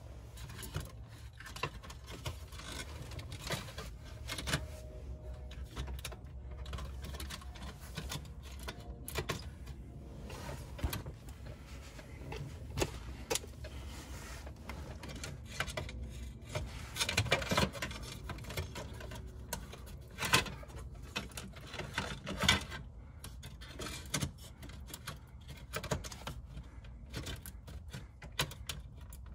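Irregular clicks, taps and rattles of plastic console trim and metal shifter parts being handled and worked into place in a 2001 Nissan Maxima's centre console, with a few sharper knocks in the second half.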